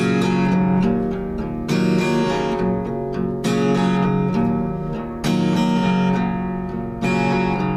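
Acoustic guitar strumming chords, a fresh strum about every second and three quarters, each chord ringing on between strums.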